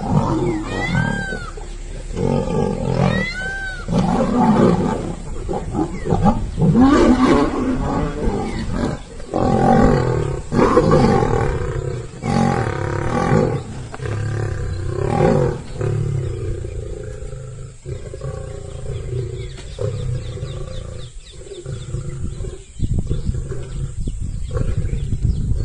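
Lions roaring and growling, loudest in the middle stretch and quieter toward the end.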